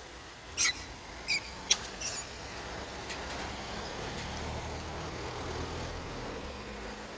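Long-tailed macaques giving four short, high squeaks within the first two seconds, over steady road traffic; a passing vehicle's low rumble swells from about four seconds in.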